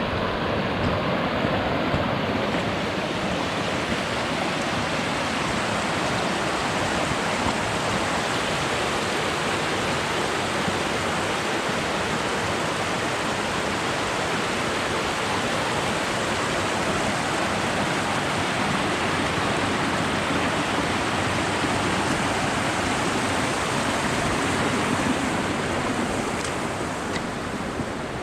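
Steady rush of a fast-flowing mountain stream, a constant even wash of water noise that eases slightly near the end.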